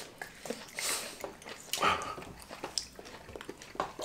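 People eating at close range: wet chewing, lip smacks and bites into seedless red grapes, a run of short clicks with a couple of brief squelches.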